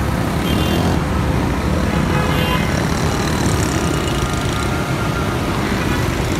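Steady road traffic noise from vehicle engines on a flooded road, with a heavy low rumble.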